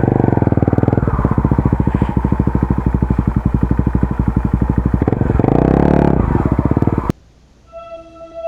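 Honda Tornado 250's single-cylinder four-stroke engine running with even firing pulses, revved up once briefly about five seconds in and settling again, then cutting off suddenly about seven seconds in.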